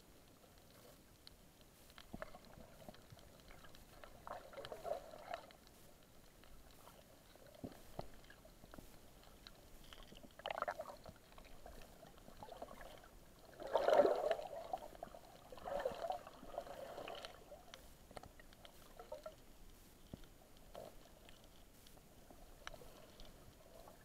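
Muffled sound of water moving and bubbling around a submerged camera, with scattered clicks and crackles. There are irregular gurgling surges, the loudest just past the middle.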